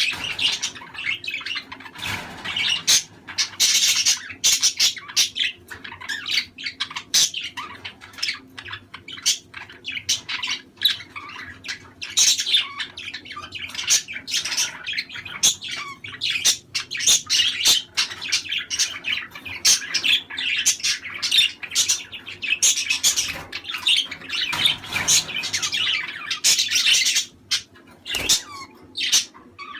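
Budgerigar chatter: a dense, continuous stream of quick warbling chirps, clicks and short squawks, thinning a little near the end.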